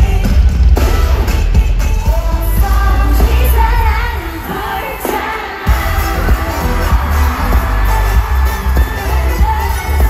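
Live K-pop concert music over a stadium sound system: loud singing over heavy bass. About four seconds in the bass drops out and the music thins for a second and a half, then the bass comes back in hard.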